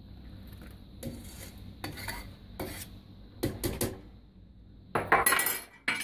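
Metal ladle scraping and clinking against a large stainless steel pot as cheese curds are scooped out of the whey. A run of separate knocks and scrapes, louder and denser near the end.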